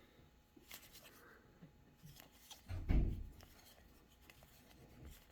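Trading cards being handled and flipped through: light rustles and small clicks of card stock, with a dull bump about three seconds in.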